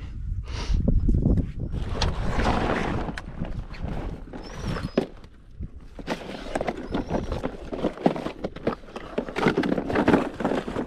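Dobermans moving about on a boat's deck: claws clicking and knocking on the floor, with rustling and scattered knocks throughout and a short lull about halfway.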